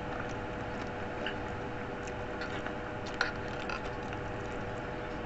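Eating sounds: scattered small clicks and smacks of chewing and biting on stewed chicken feet, the sharpest click about three seconds in, over a steady background hiss and faint hum.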